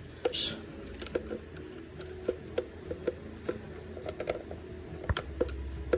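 Scattered light clicks and taps of a Chevy fuel pump module being handled as its plastic clips are worked loose, with a dull thump about five seconds in and a low hum after it.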